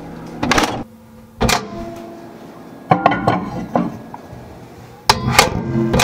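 A run of knocks and clatters as the camera is picked up and carried and things are handled around an open refrigerator, with hard strikes about every one to two seconds.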